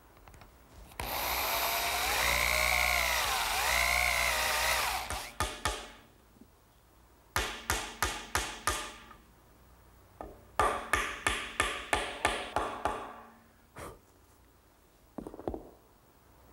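Electric drill boring a dowel hole through a pine mortise-and-tenon joint, its pitch dipping twice as the bit bites and recovering. It is followed by several quick runs of sharp taps driving hardwood dowels into the drilled holes.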